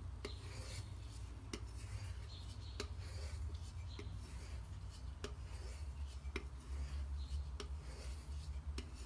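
Knife blade being stropped on a leather strop charged with 0.5-micron diamond spray: soft rubbing passes with a light tick roughly every half second as the blade turns from stroke to stroke.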